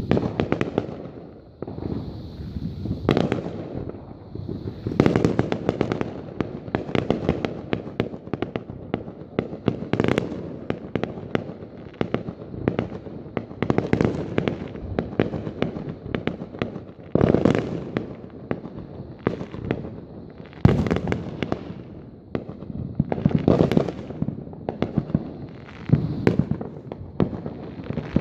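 Neighbourhood fireworks going off in rapid succession: a near-continuous barrage of bangs and crackling, with heavier booms every few seconds.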